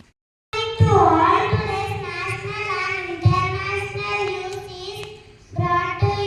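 Children singing a song with long held notes. The singing starts about half a second in, after a moment of dead silence, and breaks briefly near the end before going on.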